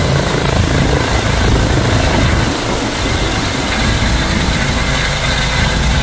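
Emergency medical helicopter flying low and close, its rotor and turbine running with a loud, steady noise.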